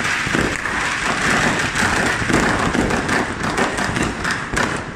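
Many fireworks and firecrackers going off at once: a dense, continuous crackle of rapid pops and bangs.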